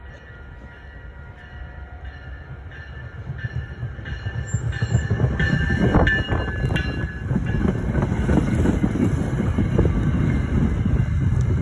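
Train running on the rails and growing steadily louder, with a regular clicking of wheels over the rail joints and a thin metallic squeal.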